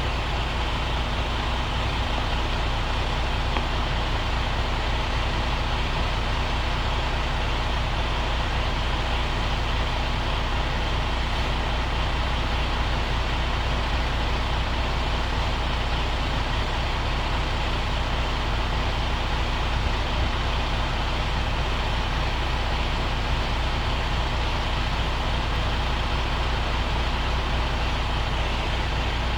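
Truck's diesel engine running steadily, an even low hum that does not change.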